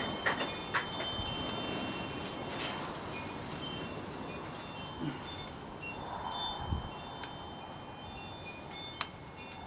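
Wind chimes tinkling on and off, many short ringing notes at different high pitches, with a few sharp clicks, one loud click near the end.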